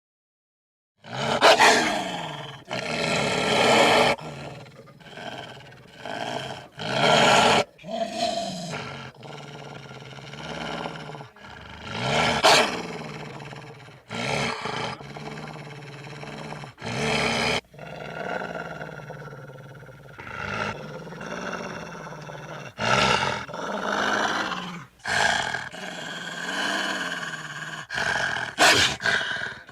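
Gray wolves growling and snarling in a string of short, loud outbursts, starting about a second in, with longer pitched calls in between later on.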